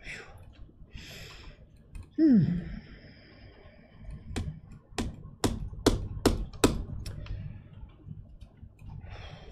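A short falling vocal sound about two seconds in, then a run of six sharp computer mouse clicks, roughly two a second.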